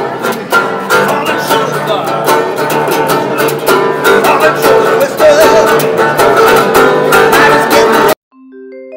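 Metal-bodied resonator guitar strummed briskly in a steady rhythm, with a bright, twangy, slightly banjo-like ring. It cuts off abruptly about eight seconds in, and a few soft bell-like notes follow.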